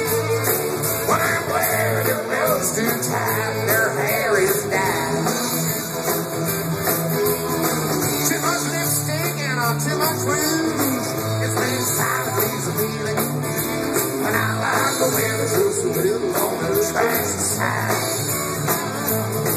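Live country rock band playing an instrumental break: electric guitars over bass and drums, with a lead line bending up and down in pitch.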